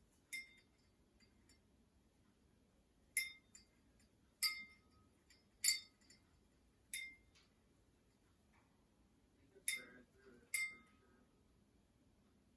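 Small metal bell toy struck by a parrot's wing, ringing seven times in short clear dings at irregular gaps of one to three seconds.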